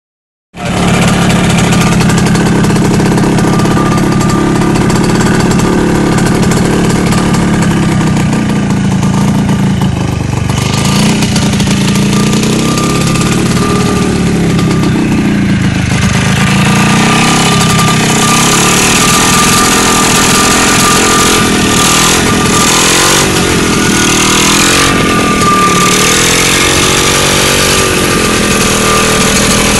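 Ultralight aircraft's small engine running steadily on its carburettor just repaired, its speed dipping and wandering a few times in the second half as the throttle is worked.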